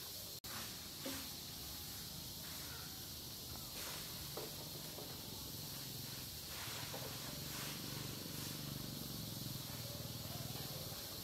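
Steady outdoor hiss of background ambience, with a brief dropout just under half a second in and a few faint short ticks and chirps.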